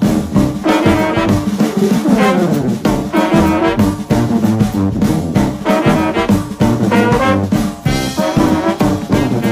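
Background music led by brass instruments, with a jazzy swing feel and a steady beat.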